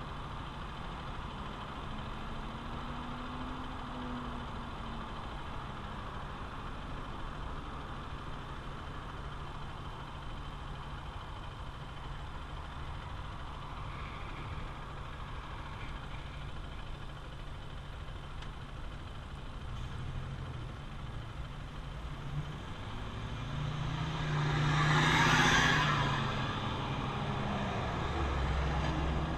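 Honda XR150L single-cylinder four-stroke motorcycle engine running steadily during riding, with wind and road noise. About 24 seconds in, a louder rushing noise swells and fades over a couple of seconds.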